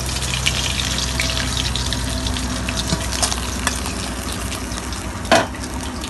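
Hot mustard oil sizzling in a wok with many small crackles, just after pieces of bhola fish have been fried crisp in it, and a metal spatula scraping in the pan. A single sharp knock, the loudest sound, about five seconds in.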